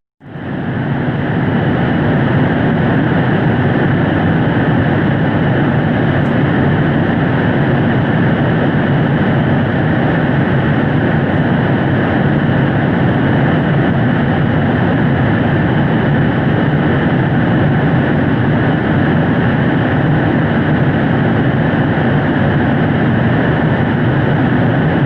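Steady, unchanging noisy drone, like a distant engine or jet, presented as the 'sound' of Saturn's moon Pallene: a space-ambience sonification. It swells in over the first second, then holds level.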